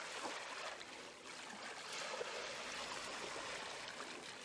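Steady rush of flowing stream water, an even running-water sound with no break.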